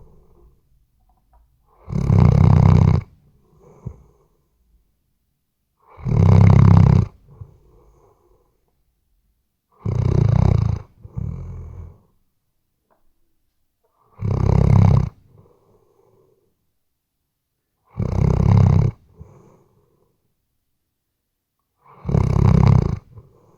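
Weimaraner snoring in its sleep: six loud snores, evenly spaced about four seconds apart and each about a second long, each followed by a shorter, quieter sound.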